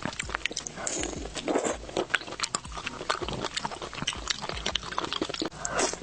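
Close-miked eating: wet chewing with rapid mouth clicks and smacks, and a few short slurps.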